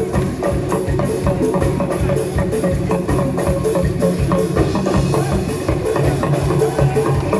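Live band playing an upbeat Frafra gospel groove: drum kit and percussion keep a steady, quick beat over a bass line.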